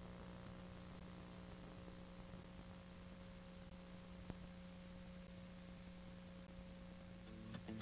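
Near silence: a faint steady hum with hiss under it, and one small click about halfway through.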